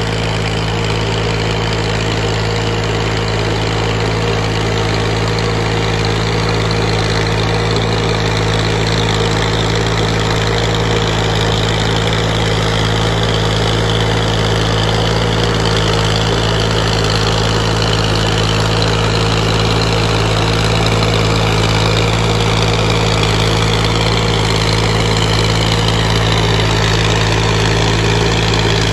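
Massey Ferguson 240 tractor's three-cylinder diesel engine running steadily under load as it pulls an implement through a flooded paddy field, growing slowly louder as it comes closer.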